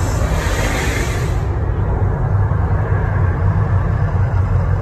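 Gas fireball of a mock volcano show roaring in a loud rushing hiss that cuts off about a second and a half in, over a steady deep rumble.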